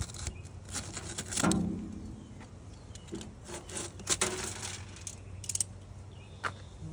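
Paper bag of concrete mix being torn open and handled in a metal wheelbarrow: irregular paper rustling and tearing with scattered small clicks and scrapes.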